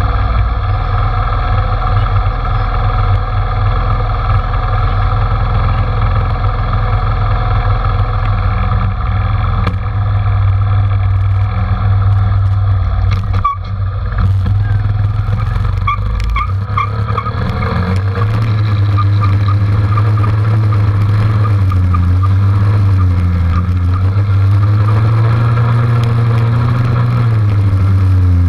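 Dirt bike engine idling steadily for a while, then revving up and down as the bike rides off along a dirt trail.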